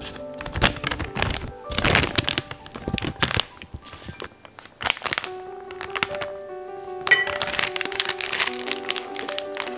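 Plastic food bag crinkling and rustling as sticky yeast dough is pushed into it and the bag is gathered up by hand, in two spells, the second starting about seven seconds in. Soft background music plays throughout.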